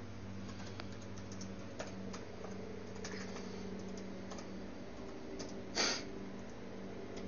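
Typing on a computer keyboard: scattered, light key clicks, with one louder, longer noisy keystroke-like sound about six seconds in, over a steady low hum.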